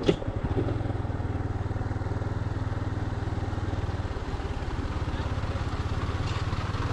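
Yamaha Ténéré 250's single-cylinder four-stroke engine running steadily under the rider, a fast, even low putter, dipping slightly about four seconds in.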